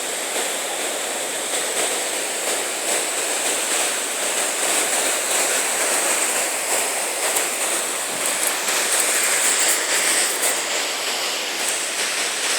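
Whitewater river rapids rushing over rocks, a steady, even roar of water.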